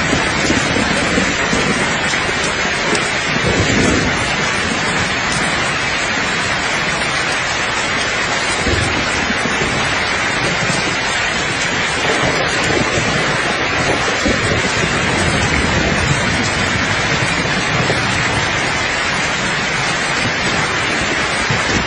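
Steady rain with light rolls of thunder rumbling underneath, one swelling about three to four seconds in.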